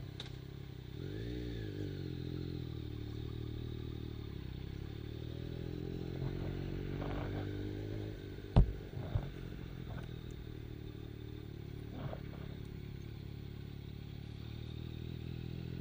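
Yamaha MT-09's three-cylinder engine running at low speed as the motorcycle rolls off, with a brief rev that rises and falls about a second in. A single sharp knock about halfway through is the loudest sound.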